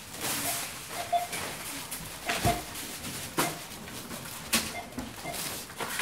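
Supermarket checkout sounds: several short scanner beeps, with items knocking and clattering and brief rustles in between.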